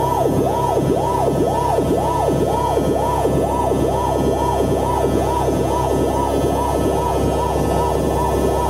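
Electronic soundtrack: a tone that swoops up and falls back down about twice a second, like a siren, over a steady droning chord.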